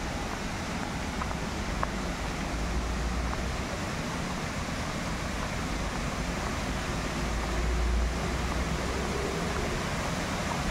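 Steady rush of flowing water, with wind rumbling on the microphone, the rumble heaviest about seven to eight seconds in.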